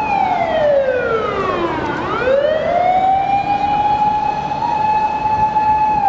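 Japanese fire engine siren wailing: a loud held tone that slides down in pitch for about two seconds, sweeps back up and holds steady again.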